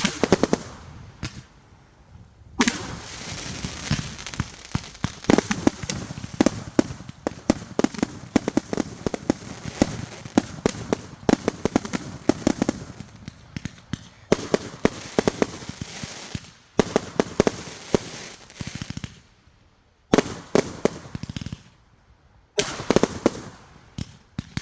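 Consumer fireworks going off in rapid volleys of sharp bangs and crackle, with a few short lulls between volleys.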